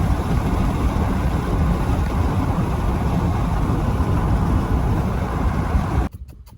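Motor vehicle noise: a loud, steady low rumble of engine and road noise that cuts off abruptly about six seconds in.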